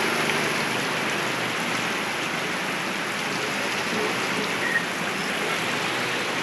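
Heavy rain pouring down onto a flooded street, a steady, even hiss of rain hitting standing water.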